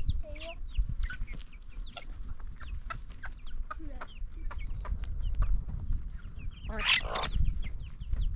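A flock of chickens clucking and calling, with many short high calls throughout and a louder harsh burst about seven seconds in.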